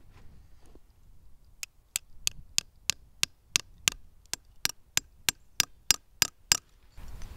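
A sap spile being hammered into a freshly drilled taphole in a maple trunk: about sixteen light, sharp, evenly spaced taps, roughly three a second, starting about a second and a half in and stopping shortly before the end.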